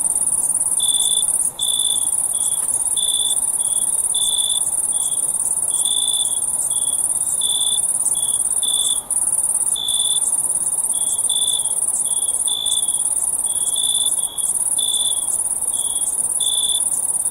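Crickets chirping: a steady, very high-pitched trill, with a lower chirp repeating irregularly about twice a second over it.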